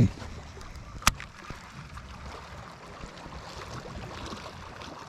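Water lapping faintly against the hull of a NuCanoe kayak, with a loud low thump at the very start and a single sharp click about a second in.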